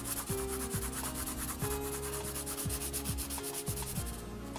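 Graphite pencil hatching on drawing paper: rapid back-and-forth scratchy strokes, about ten a second, darkening a shaded area. The strokes stop about four seconds in.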